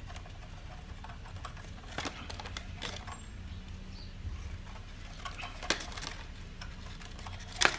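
Handling noise of paper brochures being pulled off a plastic leaf blower: scattered light clicks and rustles, with a sharper click near the end, over a steady low hum.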